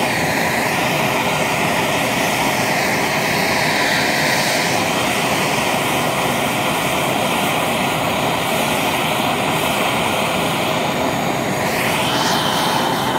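Gas torch flame running loud and steady, heating a crucible of molten dental gold as it is poured into a graphite mold.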